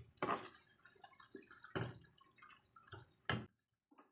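A slotted spatula stirring fried chicken pieces through thick soy-sauce gravy in a non-stick wok: wet, sticky sloshing broken by several sharp knocks of the spatula against the pan. The strongest knocks come near the start and about three seconds in, and then the stirring stops.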